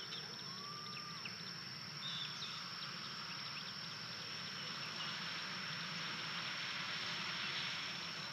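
Woodland evening ambience: scattered short bird chirps and calls, including a sliding whistled note about half a second in, over a steady high-pitched hum and a hiss that grows a little louder after about two seconds.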